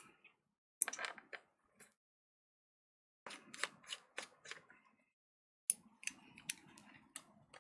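Small screwdriver working the screws of a MacBook Air's aluminium bottom case, heard as three bursts of quick clicks and scrapes.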